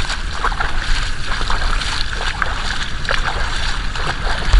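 Footsteps wading through the shallow water of a cross-country water obstacle, splashing irregularly, over a low wind rumble on the microphone.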